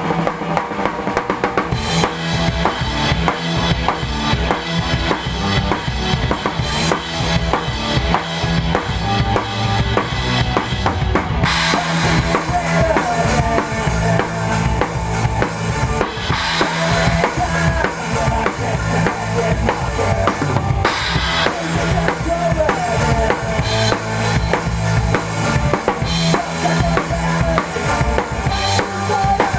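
Rock band playing a song live, with the drum kit loudest: kick drum, snare and rimshots driving a steady beat. The music gets brighter at the top about two seconds in and again about eleven seconds in.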